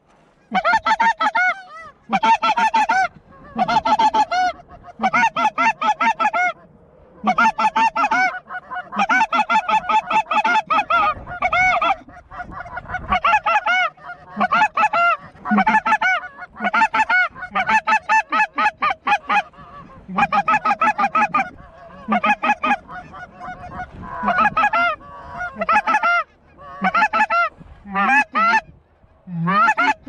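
Snow goose calls: many high honks in quick runs about a second long, broken by short pauses, going on without let-up.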